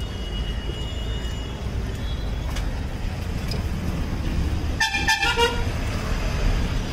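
Steady rumble of street traffic, with a vehicle horn honking once, briefly, about five seconds in.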